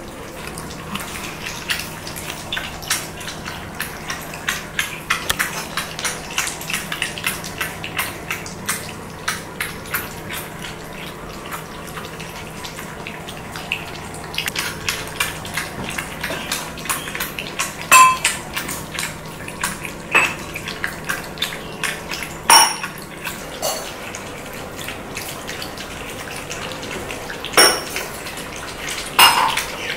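Shih tzu puppies suckling at their mother, making quick, irregular clicking sounds, several a second, with a few louder clicks in the second half.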